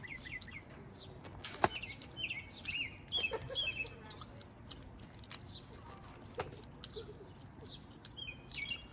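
Small birds chirping in short, repeated hooked notes, with scattered sharp clicks and cracks of crawfish shells being peeled by hand. The loudest sound is a single crack about one and a half seconds in.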